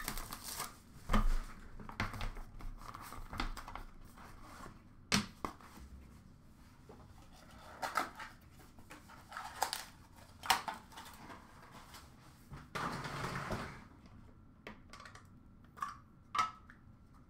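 Hands handling a hockey card box and its packs: scattered sharp taps and clicks of cardboard and card stacks, with short rustles of wrappers and a longer crinkling rustle about three-quarters of the way through.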